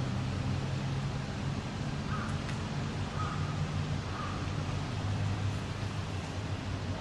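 Steady low drone of a vehicle engine running. Partway through, a crow caws faintly three times, about a second apart.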